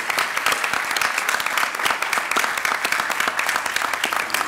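Audience applauding steadily, many people clapping at once in a large hall.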